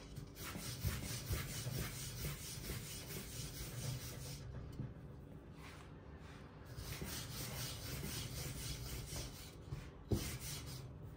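A long thin wooden rolling pin (oklava) rolling back and forth over yufka dough on a floured silicone mat, a rhythmic rubbing, quieter for a couple of seconds near the middle. A single short knock about ten seconds in.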